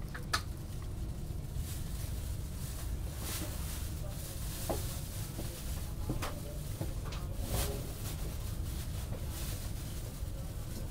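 Steady low rumble of a moving passenger train heard from inside the carriage. There is a sharp click just after the start and a few fainter knocks scattered through it.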